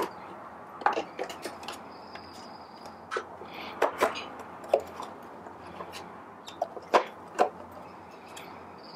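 Scattered clicks and knocks of a Baratza Encore coffee grinder's plastic casing being unscrewed with a screwdriver and handled on a tabletop, with a few sharper knocks about seven seconds in.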